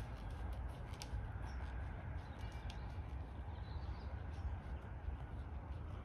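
Low, fluctuating rumble of wind on the microphone, with a few soft hoof falls of a horse walking on a rubber-chip arena surface. A bird chirps faintly a few times around the middle.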